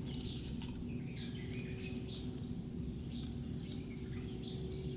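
Small birds chirping now and then over a steady low hum, with a few faint clicks.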